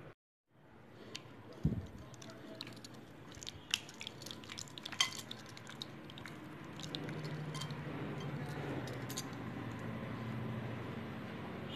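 Hands squishing chicken pieces through a thick yogurt and green chutney marinade in a glass bowl, with a soft thump near the start and a run of light clinks against the glass a few seconds in. A low steady hum comes in about halfway through.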